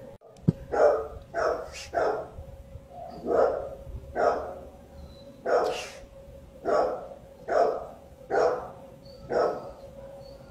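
A dog barking repeatedly, about ten single barks spaced roughly a second apart, over a faint steady hum.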